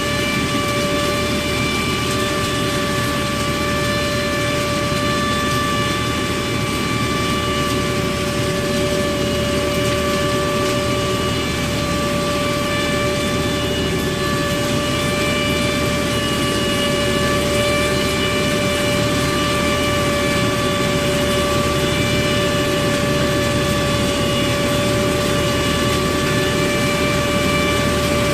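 Hasatsan H 1800 sweeper-type nut harvester running steadily, a continuous high whine with several overtones over the rumble of its drive.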